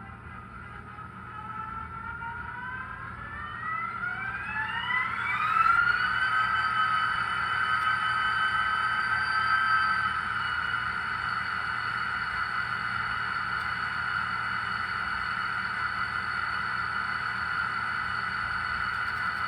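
ScaleTrains GP30 model diesel locomotive pulling away on the layout: a whine that rises in pitch for a few seconds and levels off about six seconds in, then runs steadily.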